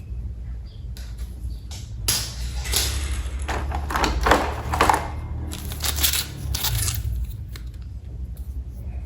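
Rustling and crinkling of plastic packaging or parts being handled, in two spells, the first the louder, over a steady low hum.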